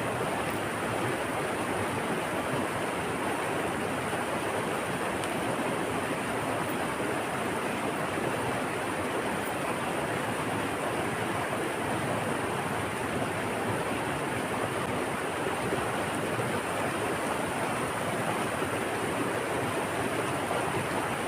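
Steady rushing of flowing water, an even, unbroken wash with no surges.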